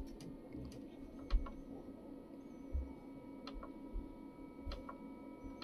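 Buttons on a SUNLU FilaDryer S1 Plus filament dryer's control panel being pressed: a series of short, irregular clicks over a steady low hum.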